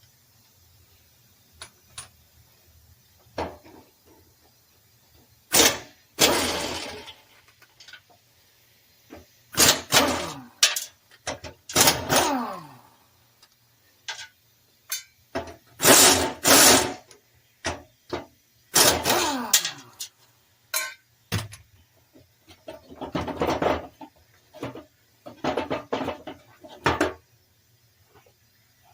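Pneumatic air wrench run in about eight short, loud bursts, loosening the bolts that hold the mower deck's spindles. Several bursts end with a tone that falls in pitch.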